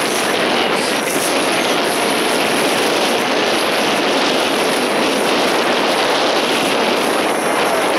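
Steady rushing noise on a fishing boat out on open water: the drone of the boat's engine mixed with wind and water, even and unbroken throughout.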